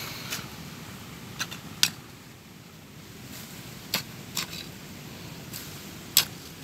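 Bare hands digging and scratching through loose soil, with a few sharp short scrapes or clicks, the loudest at about two, four and six seconds in.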